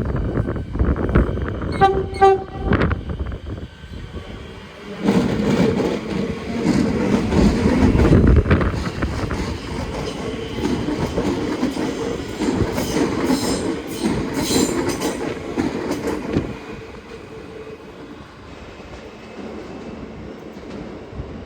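Siemens Nexas electric train sounding short blasts on its low-note horn about two seconds in, then running past as it departs, its wheels and motors loud for about ten seconds before fading away. Wind buffets the microphone.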